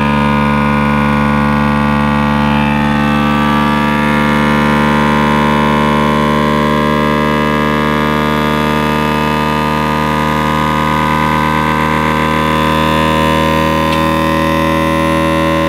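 FoodSaver vacuum sealer's pump running with a steady hum, drawing the air out of a bag packed with a stuffed toy.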